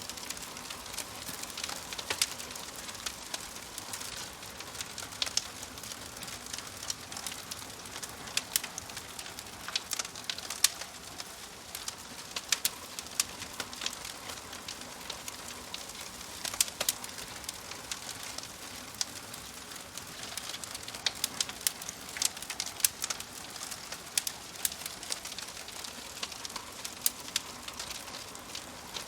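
Wood fire crackling: irregular sharp pops and snaps, several a second at times, over a steady soft hiss.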